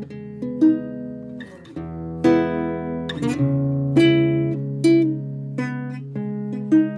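Background music on acoustic guitar: plucked notes and chords, each new note struck about every half second to second and left to ring.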